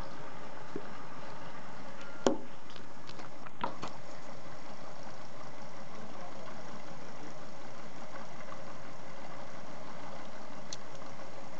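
Small Stirling engine running steadily, turning a generator. A sharp click about two seconds in and a fainter one about a second and a half later.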